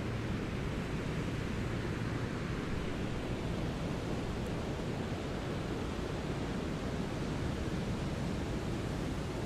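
Brown noise: a steady, deep rushing hiss with most of its weight in the low end and little treble, unchanging throughout.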